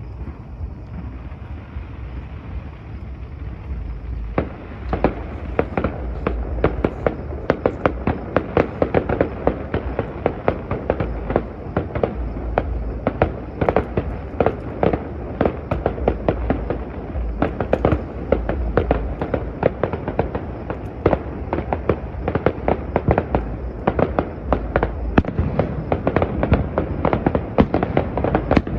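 Fireworks display: a low rumble, then from about four seconds in a dense, rapid barrage of bangs and crackling bursts that keeps on, heard through a phone's microphone.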